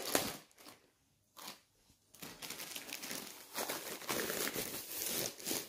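Plastic cover of a diamond painting kit crinkling as it is handled: a short rustle at the start, a pause, then steady crackling plastic from about two seconds in.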